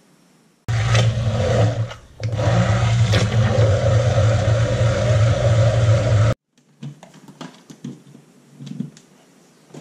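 Handheld electric wand (immersion) blender running in a crock pot of melting lard, coconut oil and wax for hot-process soap, with a steady motor hum. It switches on about a second in, stops briefly near two seconds, then runs again until it cuts off sharply at about six seconds. A few light knocks follow.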